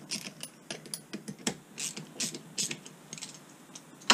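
Ratchet spanner clicking in short rasping strokes, about three a second, as it undoes the oil filler on a Honda HRX537 mower's hydrostatic drive unit. A louder metallic knock comes right at the end.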